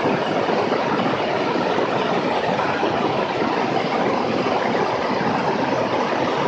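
Steady rushing airflow mixed with engine and propeller noise from a Beechcraft S35 Bonanza in its climb after takeoff. It is heard from a camera mounted on the airframe, so wind buffeting the microphone blurs it into an even roar.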